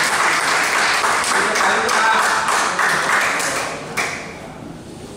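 Spectators in a hall talking and clapping after a point, dying away about four seconds in; then a table tennis ball clicks off a bat as play starts again.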